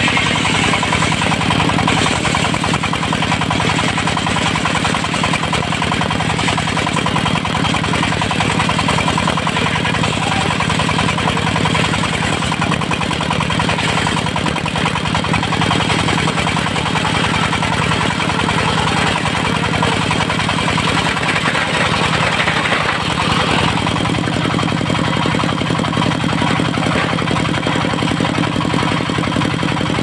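Diesel-driven circular sawmill running steadily while its large disc blade rips a small teak log into battens. The cutting noise rides over the engine, then eases about three quarters of the way through as the blade comes clear of the log.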